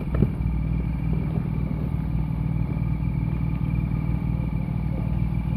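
Jeep Wrangler engine running steadily at low revs as it crawls down a rocky trail, with one sharp knock just after the start.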